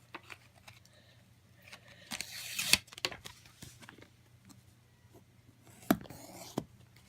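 Small plastic parts of a dummy phone being handled and pried at: scattered clicks, a scraping rustle about two seconds in that ends in a sharp click, and another sharp click with a brief rustle near six seconds.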